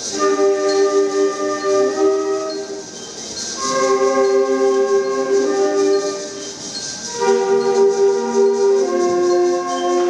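Middle school concert band of flutes, clarinets and brass playing a slow passage of held chords in three phrases, each swelling and breaking off briefly about three and seven seconds in.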